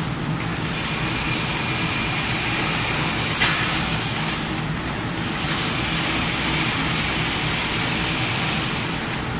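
Steady hum and whir of factory machinery running, with one sharp clack about three and a half seconds in.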